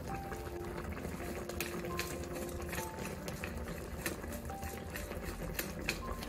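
Pot of braised chicken simmering on the cooktop, with scattered small pops and ticks, under soft background music.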